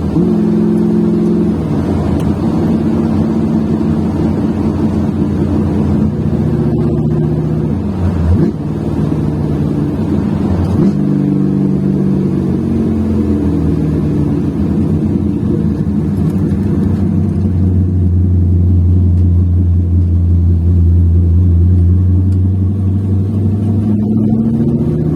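Ford 331 stroker small-block V8 running through its exhaust, still being broken in. The engine pitch shifts between steady levels with a brief drop about a third of the way through, holds steady for a long stretch, and climbs again near the end.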